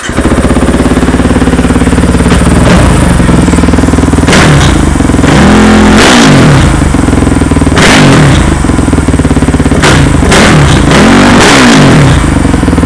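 Kawasaki KFX450R quad's single-cylinder four-stroke engine running through a DASA full-system race exhaust and K&N intake, really loud, and blipped twice, the pitch rising and falling back each time.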